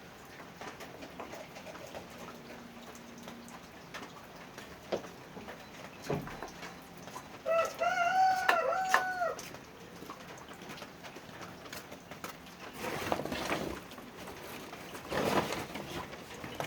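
A rooster crows once, a call of under two seconds near the middle, with scattered knocks and rustling around it.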